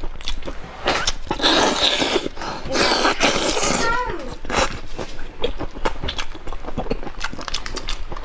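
Close-miked eating sounds: whole marinated prawns being peeled by hand and chewed, with many small clicks and crackles of shell and wet lip smacks. Two longer hissing slurps come about a second and about three seconds in.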